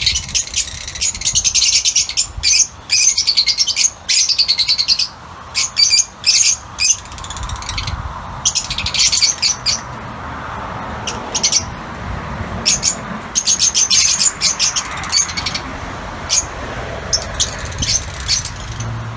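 Lutino Fischer's lovebirds chattering in rapid, shrill, high-pitched chirps, dense for the first half and then in shorter, spaced bursts.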